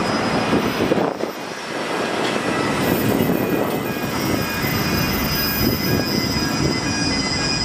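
Container terminal machinery running: a steady rumble with a thin high whine over it.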